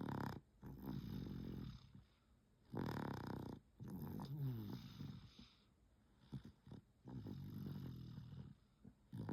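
A baby snoring in sleep: about four snoring breaths, each a second or two long, one every couple of seconds with short quiet gaps between.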